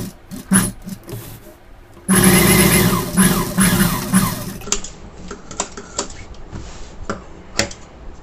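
Industrial sewing machine running, stitching a seam through the fabric for about two and a half seconds, starting about two seconds in. Short knocks and clicks of the fabric being handled come before and after.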